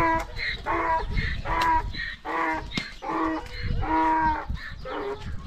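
Several young goats (kids) bleating over and over, short even-pitched bleats about one or two a second, some voices higher than others and overlapping.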